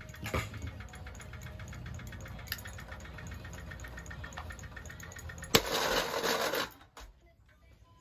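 A Harbor Breeze ceiling fan motor, its blades broken away, spins and wobbles off balance with a steady hum and a rapid, regular knocking. About five and a half seconds in there is a loud crack, followed by about a second of harsh clatter, and then the sound cuts off suddenly.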